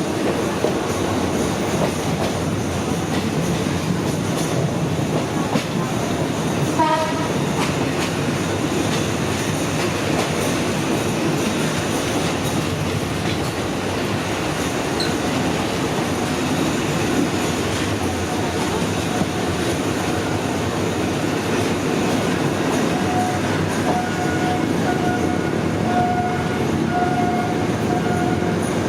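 Suburban diesel passenger train running on the rails with a steady rumble and clatter of wheels on track. A short horn note sounds about a quarter of the way through, and a pulsing steady tone comes in near the end.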